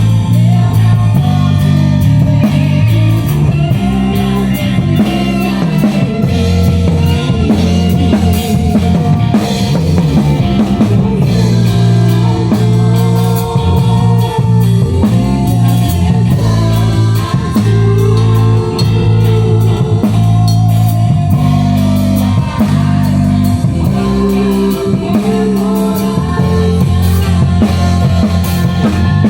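Band music with drum kit, guitar and bass playing, with some singing, in a rock-style gospel arrangement.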